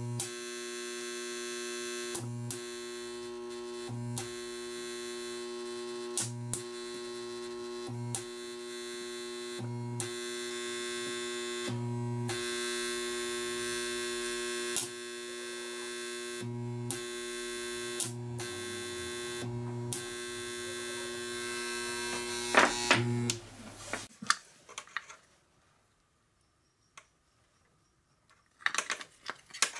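Homemade transformer spot welder humming steadily at mains frequency, with a short louder buzz and sharp snap about a dozen times, roughly every two seconds, as each weld pulse fuses a nickel strip onto a lithium cell. The hum cuts off about 24 seconds in when the welder is switched off, followed by quiet and a few handling scratches near the end.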